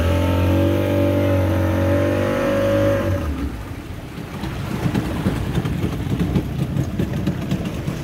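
Speedboat outboard motor running at a steady speed. About three seconds in it is throttled back to a lower, uneven idle as the boat slows.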